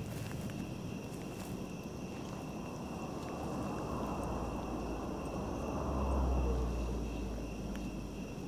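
Evening outdoor ambience: insects trilling steadily at two high pitches, with a low rumble that swells about six seconds in and then eases off.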